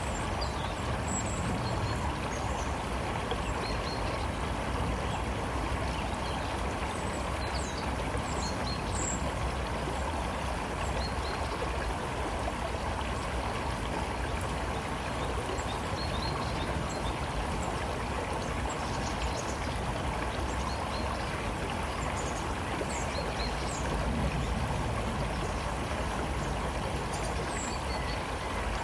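A river flowing with a steady rushing and gurgling of water, with scattered short high bird chirps over it.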